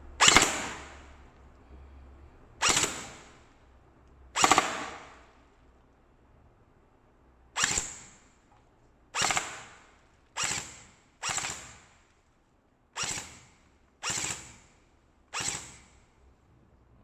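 Lehui Kriss Vector V2 gel blaster firing ten single shots through a chronograph, each a sharp electric-gearbox pop with a short tail, spaced unevenly one to three seconds apart. It is a muzzle-velocity test of the blaster with its upgraded 1.3 spring, reading around 225 to 235 on the chronograph.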